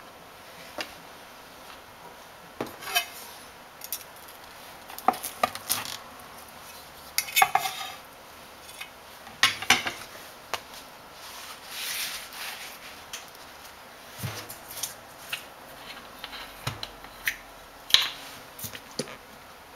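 Kitchen handling sounds on a plastic cutting board: scattered knocks, taps and light clatter as things are picked up and set down, with a short stretch of rustling about twelve seconds in.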